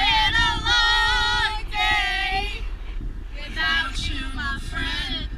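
Music with a high singing voice holding long, wavering notes over a low backing track; the notes come in phrases, with a break near the middle.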